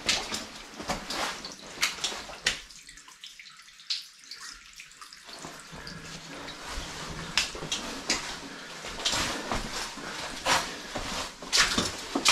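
Footsteps sloshing and splashing through shallow water on a flooded mine level, at an irregular walking pace. They pause briefly about three seconds in, then carry on.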